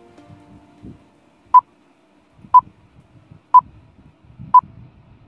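Countdown timer beeping: four short, identical electronic beeps, one each second, starting about a second and a half in.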